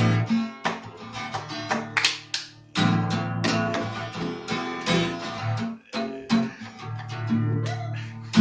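Acoustic guitar strumming chords in an instrumental passage, with repeated strokes over ringing chords.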